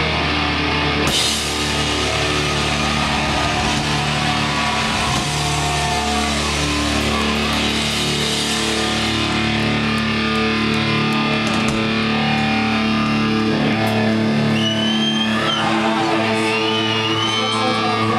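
Live rock band playing loud, with sustained electric guitar and bass. The deep low end drops away about ten seconds in, and a high wavering whine rises over the held guitar tones near the end.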